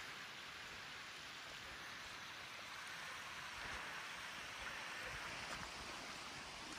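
Small mountain waterfall: a steady, faint rush of falling water.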